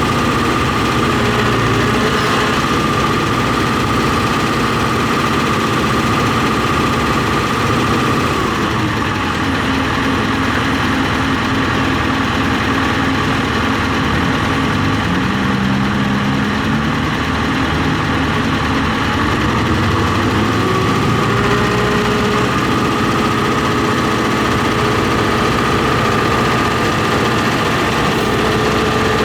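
John Deere 245G excavator's four-cylinder diesel engine running at raised speed, dropping to a lower speed about a third of the way in and rising again about two-thirds through. It feels short of power and smokes, which the mechanic suspects is a boost leak or the engine not running on all four cylinders.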